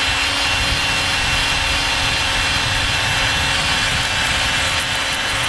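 Cordless drill spinning a rubber eraser wheel against a number plate, scrubbing off leftover adhesive strips: a steady high motor whine over a continuous rubbing noise.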